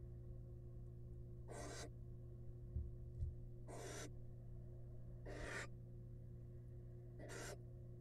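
Barn owl hissing: four short, raspy hisses about two seconds apart. Two soft low thumps come in the middle, over a steady low hum.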